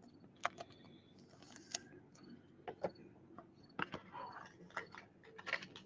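Faint, irregular clicks and rustles of trading cards and plastic card holders being handled, with short, high chirps repeating faintly in the background.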